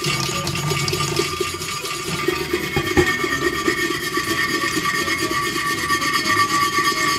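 Brass wire brush scrubbing the inside of a stainless steel pot in fast, steady strokes, scouring off stubborn grime, with tap water trickling into the pot. A short click about three seconds in.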